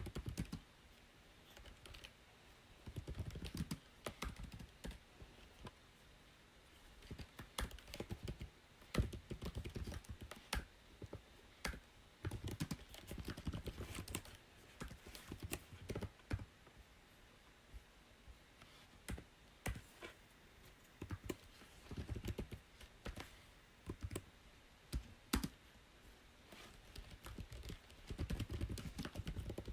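Typing on a computer keyboard: bursts of quick keystrokes separated by pauses of a second or two.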